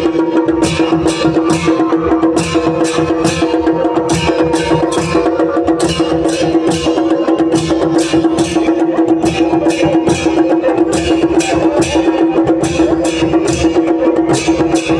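Traditional dhol and damau drums playing together with a pair of large brass jhanjh (jhar) hand cymbals. The cymbals clash in a steady rhythm, about two to three times a second, over a steady held tone.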